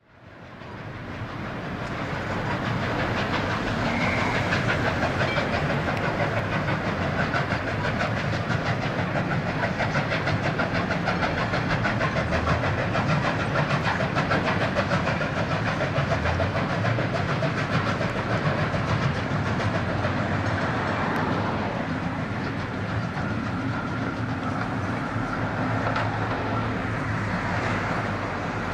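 Melbourne tram running on its rails: a steady rolling rumble with fast wheel clatter, fading in over the first couple of seconds.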